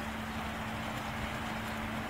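Steady mechanical hum: a constant low tone over an even wash of noise, unchanging throughout.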